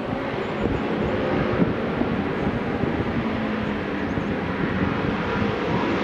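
Historic racing motorcycle engine running hard up the hill climb, its pitch rising and falling as the rider works the throttle and gears.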